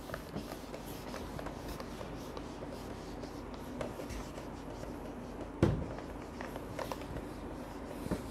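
Faint scratching of someone writing, with small ticks and a single knock about five and a half seconds in.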